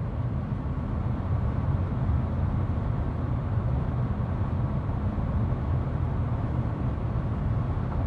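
Interior noise of a 2021 Kia Sorento 2.2 CRDi diesel SUV cruising at a steady 130 km/h: a constant low tyre and road rumble with wind noise, on winter tyres, with the ventilation closed.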